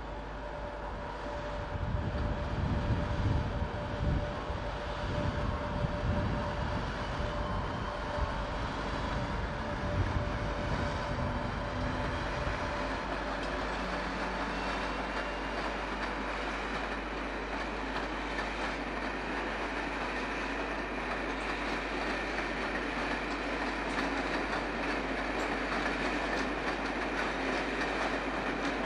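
British Rail Class 86 AC electric locomotive and its coaches rolling slowly through the station pointwork, wheels clattering over the rail joints. A heavy low rumble with thumps in the first half gives way to a steadier rolling noise.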